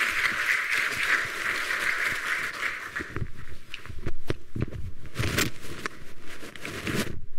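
Audience applauding, dying away about three seconds in, then scattered knocks, thumps and shuffling footsteps.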